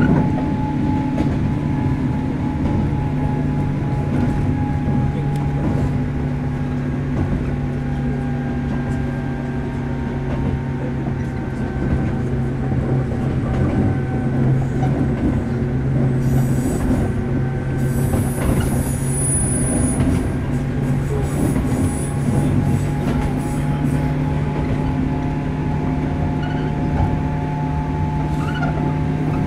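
Running sound heard from inside a JR Kyushu 103 series 1500-subseries electric motor car at steady speed: a constant motor and gear hum over rolling wheel noise. A brief high-pitched wheel squeal comes about halfway through.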